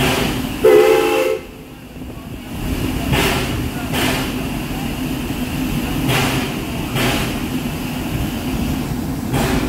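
The steam whistle of a 1973 Crown Metal Products narrow-gauge 4-4-0 steam locomotive gives one short blast, about a second long, just after the start. Then the locomotive runs on with a steady hiss, broken every couple of seconds by pairs of noisy beats.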